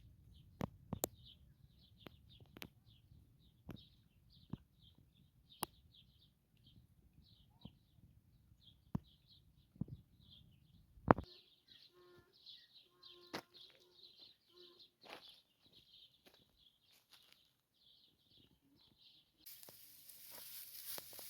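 Birds chirping in many short, quick repeated calls, faint, with scattered sharp clicks. Near the end a rustling, tearing noise sets in.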